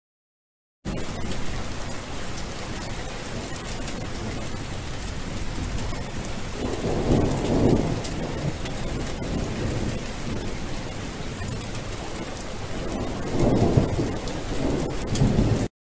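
Steady rain with two rolls of thunder, one about six to eight seconds in and another near the end; the sound starts and cuts off abruptly.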